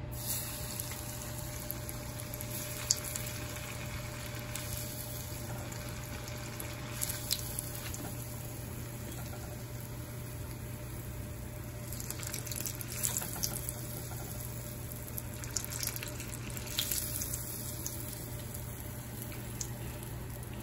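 Breaded mozzarella sticks frying in shallow oil in a pan: a steady sizzle with scattered pops and crackles that come thickest about two-thirds of the way through, over a steady low hum.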